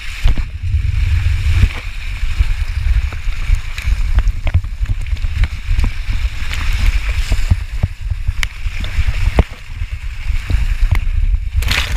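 Water rushing and spraying over a head-worn action camera while its wearer slides down a wet water-slide obstacle. Heavy low rumble of water buffeting the camera's microphone, with scattered knocks, ending in a loud splash at the very end.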